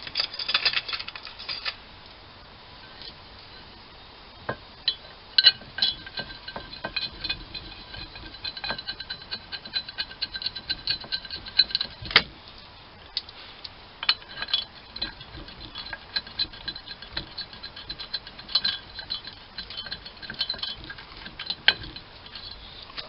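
Socket ratchet clicking in quick runs with metallic clinks as bolts are run in by hand, with short pauses between bolts.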